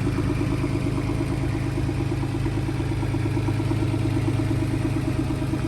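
John Deere 17ZTS mini excavator's three-cylinder Isuzu diesel idling steadily, with an even, quick pulse.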